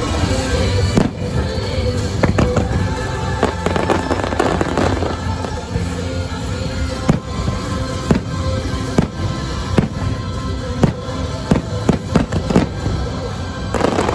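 Aerial fireworks launching and bursting in a string of sharp bangs and pops, one or two a second, over the show's music.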